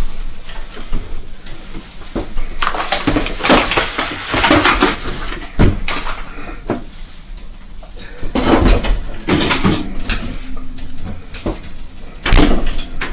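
Kitchen clatter of groceries and containers being set down and put away: a run of knocks and rattles, with a louder clatter near the end.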